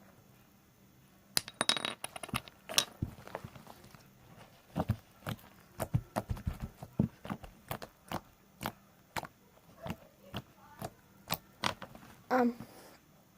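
Slime being squeezed and worked by hand, giving sharp clicks and pops at irregular intervals, with a quick crackling cluster about a second and a half in.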